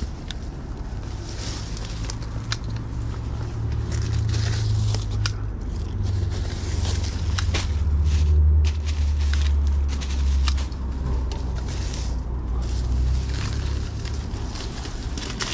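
Handheld litter-picker grabber working through dry grass, twigs and leaf litter under bushes: a run of sharp clicks, crackles and scrapes. Under it runs a steady low rumble.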